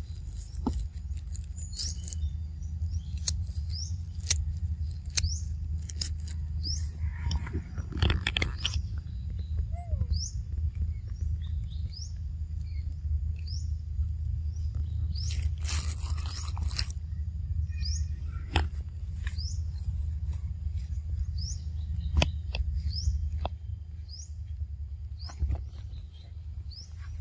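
A bird chirping over and over, short high calls about once or twice a second, above a steady low hum. Scattered sharp clicks, and a brief burst of hissing noise a little past the middle.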